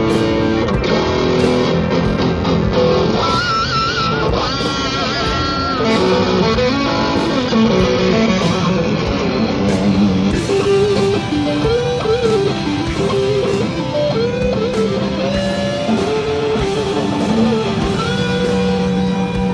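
Electric guitar played through an effects pedal in a demo: melodic lead lines with bent, wavering notes over sustained low notes.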